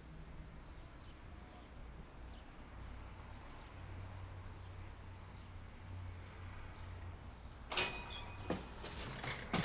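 Quiet room tone with a faint low hum. About eight seconds in comes a sudden loud metallic ring with several high tones that die away within about half a second, followed by clattering and rustling.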